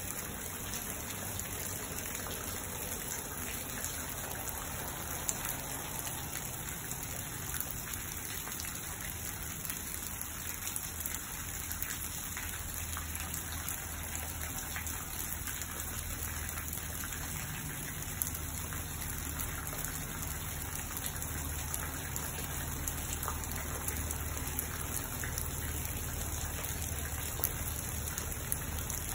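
Steady rain falling on shrub leaves and lawn: an even hiss with a few sharper ticks of single drops.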